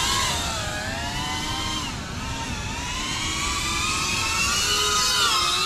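Brushless motors and propellers of a GEPRC CineLog35 FPV cinewhoop drone whining in flight, several pitches rising and falling together as the throttle changes.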